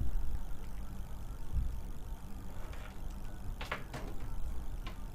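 Low steady background hum, with two faint short clicks about a second apart near the end.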